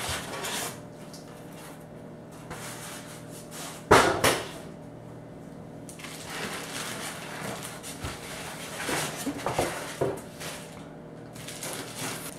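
Styrofoam packing being pulled away from a plastic-wrapped stainless steel wok, with scraping and plastic rustling and a sharp knock about four seconds in.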